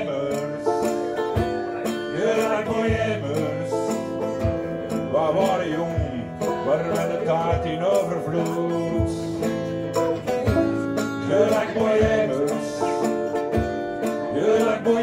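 Instrumental break of a live acoustic chanson: two acoustic guitars, steady strumming with a melody line played over it.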